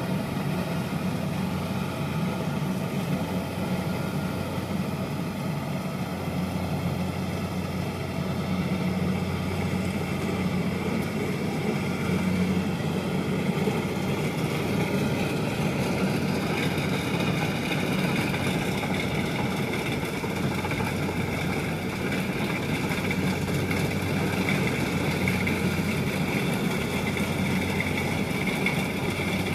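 Kubota DC70 tracked combine harvester's diesel engine running steadily as the machine drives. About halfway through, a higher whine joins in and holds.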